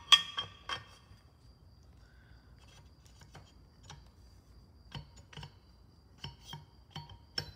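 Metal parts of a Cessna 150 nose gear oleo strut clinking and tapping as the piston tube is slid into the strut barrel: a few ringing clinks in the first second, then scattered light ticks.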